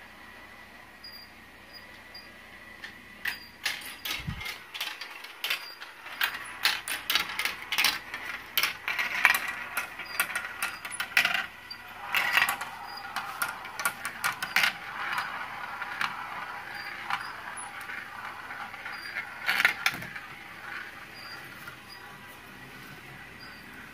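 Glass marbles rolling and clattering through plastic marble-run track pieces: a busy run of irregular clicks and rattles that starts a few seconds in and thins out near the end.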